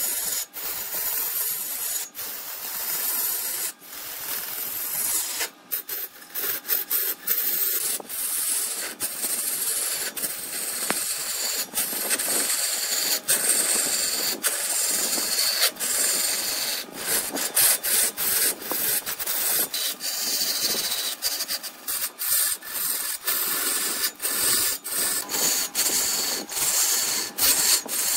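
A turning tool cutting into red incense wood spinning on a wood lathe, making a steady high hiss that is broken up by many brief gaps.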